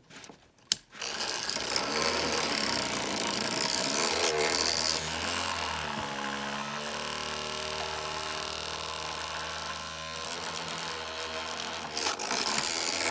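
Motorised Knotgood herb grinder running steadily as it grinds a load of herb. It starts about a second in.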